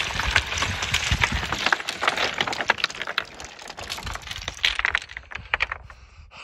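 Boots scrambling up a loose talus slope, with rocks clattering, sliding and knocking together underfoot. The clatter thins out and fades near the end.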